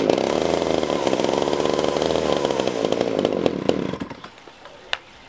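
Homelite 330 chainsaw's two-stroke engine fires on a pull of the starter cord and runs for a little under four seconds, then dies out. The owner puts the saw's trouble staying running down to fuel starvation at the carburettor.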